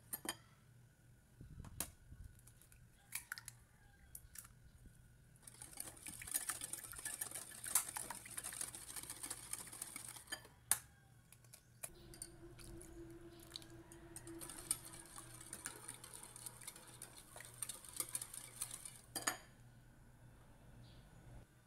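Stainless wire balloon whisk beating an egg batter in a bowl: quick scraping and clinking of the wires against the bowl in two long stretches of several seconds each, with a few single taps before the first.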